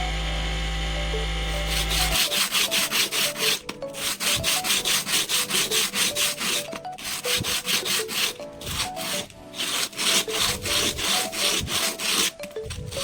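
A steady motor hum stops about two seconds in. Rapid back-and-forth scraping strokes follow, about four or five a second, as the knife blade is worked by hand against an abrasive surface. Faint background music plays underneath.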